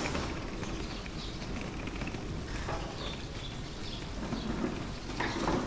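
Town street ambience: a steady low rumble with faint bird calls, and a couple of short knocks near the end.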